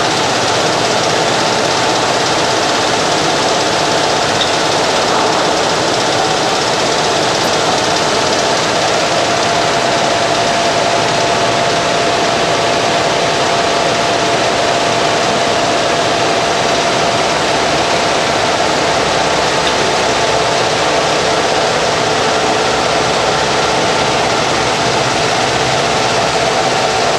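GM-550 straight-line folder-gluer running steadily: a loud, constant mechanical din with a faint steady whine.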